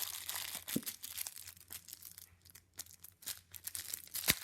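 Plastic packaging being crinkled and torn open by hand, a dense crackle of small clicks, with one sharp knock near the end.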